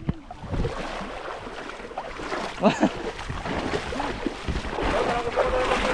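Sea water rushing and sloshing, a steady noise that grows louder over the last couple of seconds, with people's voices faintly in the background.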